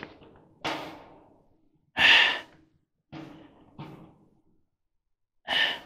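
A man's heavy breaths and sighs: about five short exhalations, the loudest about two seconds in, from the effort of turning a tight screw.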